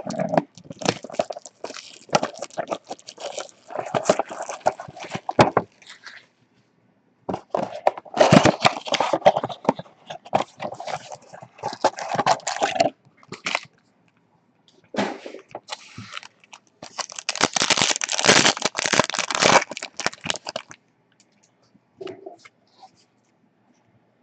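Trading-card pack wrappers being torn open and crinkled, with cards handled, in four bursts of sharp crackling broken by short pauses.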